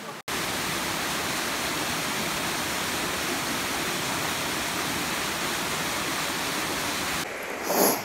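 Steady, dense rushing of fast water from a mountain stream or waterfall in a gorge. It cuts off shortly before the end, followed by a brief louder noise.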